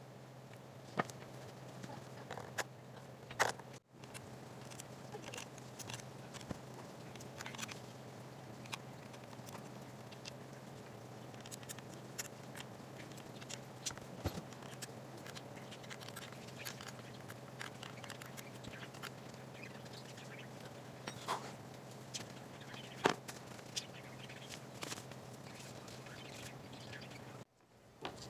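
Scattered small clicks and taps of screws and plastic parts being handled while a Onewheel GT footpad is unscrewed and lifted off, over a faint steady low hum.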